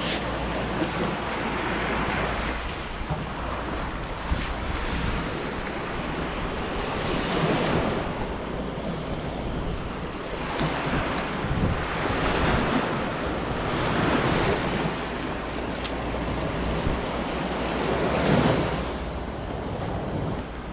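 Sea waves washing onto a beach, swelling and fading every few seconds, with wind rumbling on the microphone.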